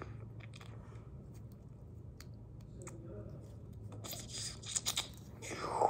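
Small plastic clicks and scraping as a Lego minifigure is handled between the fingers close to the microphone, with a cluster of sharper clicks about four to five seconds in.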